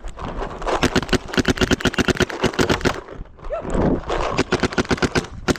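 Rapid strings of gunshots, about ten a second, in two bursts with a short break a little past halfway, as a shooter engages targets in a drill.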